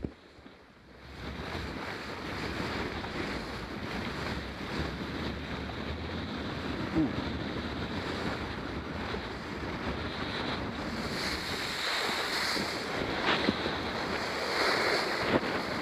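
Wind noise on the microphone and water rushing under a kiteboard as it planes across shallow water. The noise grows louder and hissier over the last few seconds as the board throws up spray.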